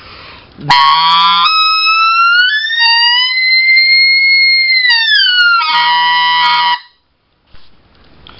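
RedBone specklebelly goose call blown in one long note: it starts in raspy voiced air (the scratch), breaks into a clear tone that rises to a high held whistle, then falls back into the raspy voice and stops. This is the elk bugle exercise, pushing from voice into clear air to find how far the call's range goes.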